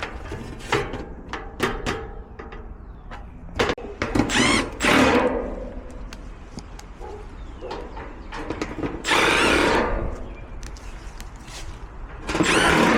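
A cordless drill run in three short bursts of about a second each, with knocks and clatter of handled parts between them.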